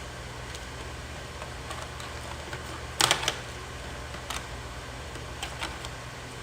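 Crab leg shells being cracked and snapped apart by hand: a quick cluster of sharp cracks about three seconds in, another crack a second later and a few small clicks near the end, over a steady low hum.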